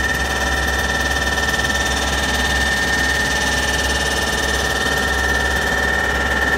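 Rubber powder grinding mill for waste tyres running steadily: a loud, even machine noise with a constant high whine.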